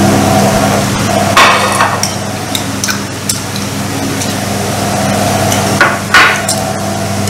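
Chopsticks and spoons clicking and knocking against ceramic rice bowls and plates during a meal, irregular taps with the loudest about a second and a half in and about six seconds in, over a steady low electrical hum.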